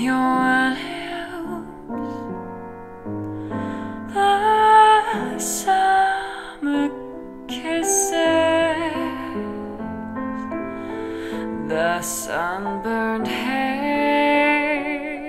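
Music played back through a KT88 tube amplifier, with a Toshiba 12BH7 driver tube, and a pair of single-cone speakers in the room: a slow passage of sustained notes, some of the melody held with vibrato.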